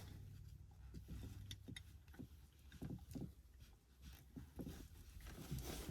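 Faint handling noises: small clicks and cloth rustles as channel-lock pliers are set on a rag-wrapped plastic seatbelt stop button, spread irregularly over a few seconds.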